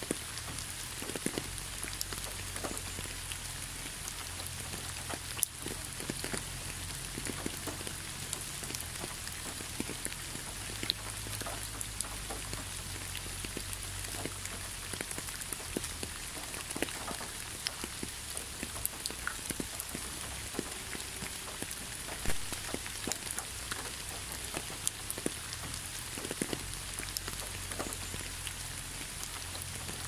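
Steady rain falling, an even hiss with many individual drops tapping at random. A low steady rumble runs underneath.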